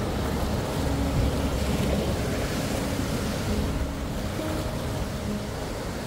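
Sea waves breaking and washing on the shore: a steady rushing surge that swells slightly in the first half, then eases.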